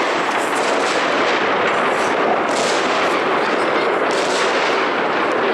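Fireworks going off in a dense, continuous barrage, the bangs running together into one unbroken crackle, with a few sharper bangs standing out.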